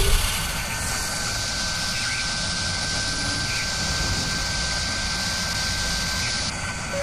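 Sound-effect of a spinning machine spindle boring into metal: a steady low rumble and rushing hiss with a thin, steady high whine. The hiss drops away about six and a half seconds in.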